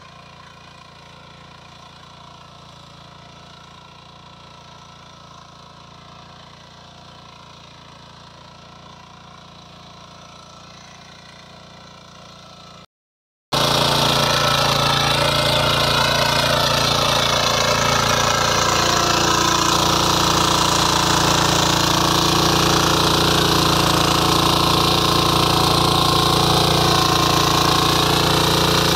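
Power weeder's engine running steadily as its rotary tines work the soil. About halfway through, the sound breaks off briefly and comes back much louder and closer.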